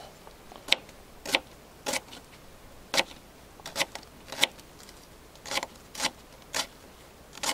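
A knife chopping through a Japanese leek onto a wooden cutting board, about ten separate, slow and uneven knocks of the blade on the board as the leek is minced.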